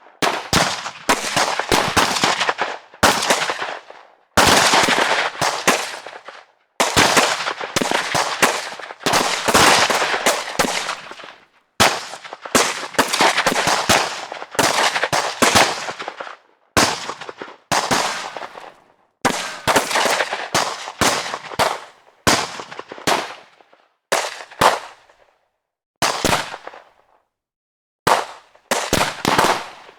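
Gunfire from automatic weapons: a string of bursts of rapid shots, each burst trailing off in an echo, with brief silences between bursts.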